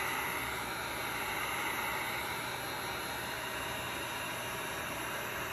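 Wagner heat gun running on a low setting, a steady rush of blown hot air, used to cure the white adhesive powder on a DTF transfer film.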